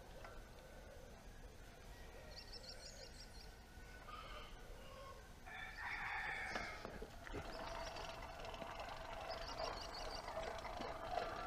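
A rooster crowing about halfway through, with short, high, rapidly repeated bird chirps before and after.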